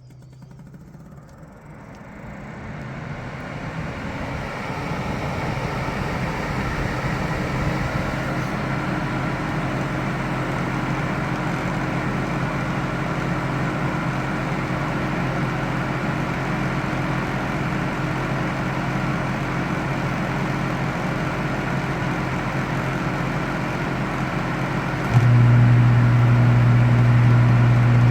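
Dehumidifier starting up: its fan spins up over the first few seconds into a steady whooshing run with a low hum underneath. A loud low hum cuts in suddenly near the end.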